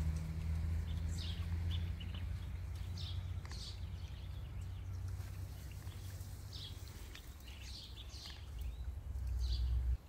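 Common blackbirds giving a dozen or so short, high alarm calls at irregular intervals while caught in a mist net, over a steady low rumble.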